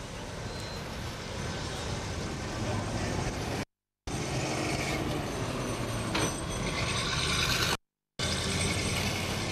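Soviet-built tram running along the track, heard in short stretches split by two brief cuts to silence. Near the end a bus drives past with its engine running.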